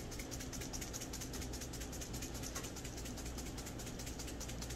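Spice bottle shaken rapidly over a bowl, the seasoning rattling out through the sifter lid in a fast, even run of small clicks.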